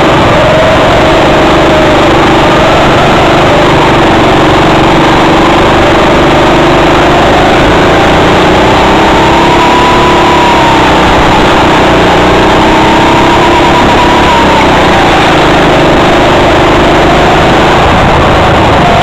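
Go-kart engine running at speed, heard from on board the kart, its pitch rising and falling gently as the kart goes through the turns; loud and steady throughout.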